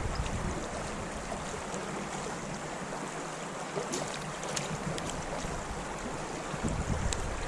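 Steady rush of creek water, with wind buffeting the microphone at first, easing off, then picking up again near the end. A few faint ticks sound over it.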